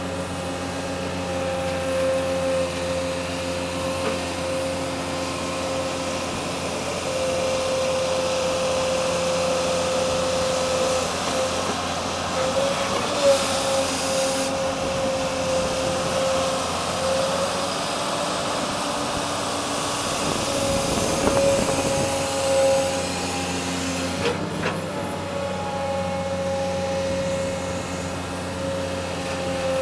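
Heavy machine running steadily as it moves over rough ground, with a constant whine over its engine. There is a brief hiss about twelve seconds in and a short knock near the middle of the second half.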